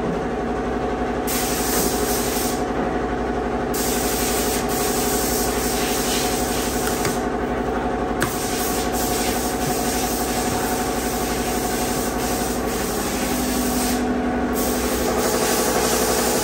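Steady hiss with a hum beneath it from workshop machinery, with scraping and rubbing as the tape on a cardboard box is cut open with a key and a small click about eight seconds in.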